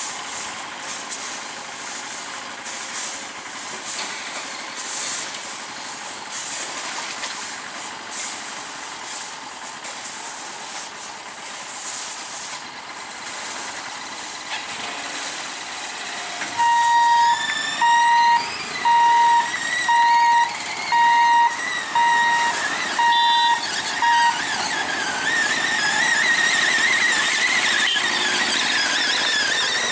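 An EMU local train running past on the tracks for the first half, followed by an electronic warning beeper sounding about ten evenly spaced beeps at one pitch, roughly one a second, as the level-crossing barrier goes up. After the beeping stops, motorbike and auto-rickshaw engines pull away over the crossing.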